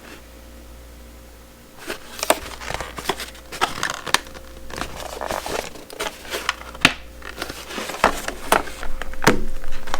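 Product packaging being handled and opened by hand: irregular crinkling, crackling and tearing with sharp clicks. It starts about two seconds in and grows louder toward the end.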